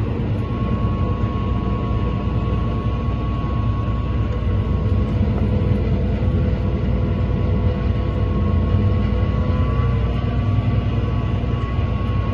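Fendt tractor running steadily under load, heard from inside the cab while it tows a ring roller across a field, with a thin steady whine above the engine drone.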